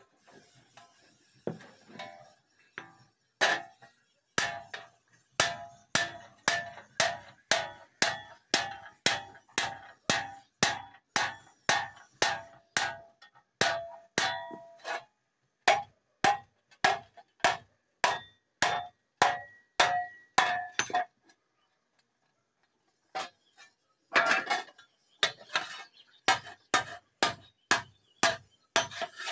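Hand hammer striking a steel sheet laid over a small iron anvil block, cutting the sheet along the block's edge: a steady run of sharp, ringing metallic blows, about two a second, that stops for a few seconds near the end and then resumes.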